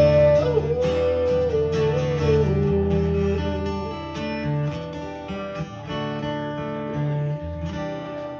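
Acoustic guitar strummed, the chords ringing on and growing quieter toward the end.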